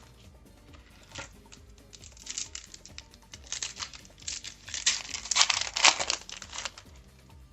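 Foil Yu-Gi-Oh booster pack wrapper crinkling and tearing as it is opened: a crackly rustle in several bursts that grows loudest near the end, over quiet background music.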